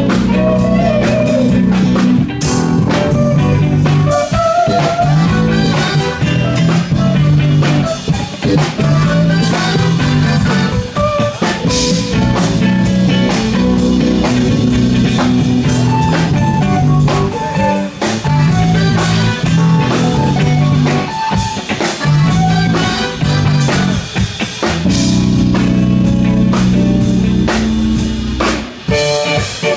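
A live band playing a song, led by a drum kit and guitar, with rimshots among the drum hits.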